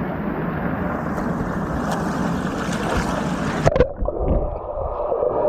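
Wave pool water rushing and splashing right at the microphone. About two-thirds of the way in, the camera goes under the water and the sound turns muffled and gurgling.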